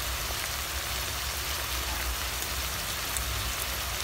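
Spinach, chicken breast and fried tofu sizzling in a pan with a little added water: a steady, even hiss over a low hum.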